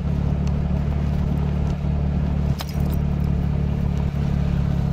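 Motorcycle running at a steady road speed: a steady low engine hum under an even rush of road and wind noise, with one sharp click about two and a half seconds in.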